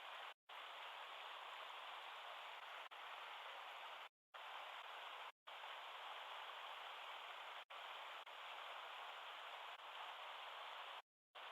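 Mountain stream water rushing over rocks as a steady hiss, cut off abruptly by a few brief total dropouts.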